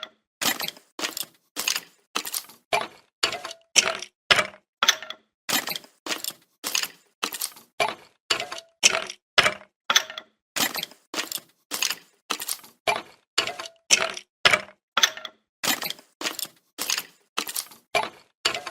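Skeleton sound effect: bones clattering and cracking in short crackling bursts, about two a second, each separated by a brief silence.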